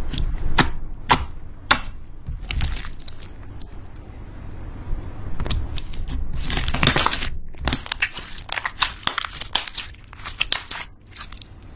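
Glossy blue slime being pressed, folded and squeezed by hand: sticky crackling and sharp wet pops. Three separate pops come in the first two seconds, a longer run of crackling follows in the middle, and a quick string of small pops comes near the end.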